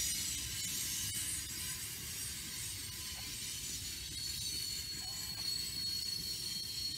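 Freight train cars rolling past, with a steady rolling noise of steel wheels on the rails. A thin, steady high-pitched whine comes in about two-thirds of the way through.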